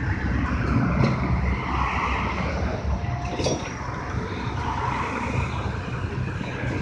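Natural-gas shuttle bus engine idling at the curb, a steady low rumble.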